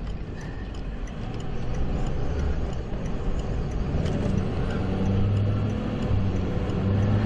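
Car engine and road noise heard from inside the vehicle: a steady low rumble, with the engine note coming through more clearly over the last few seconds.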